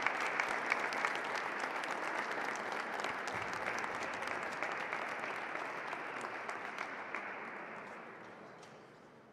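Audience applauding, a dense patter of clapping that thins out and fades away over the last two seconds or so.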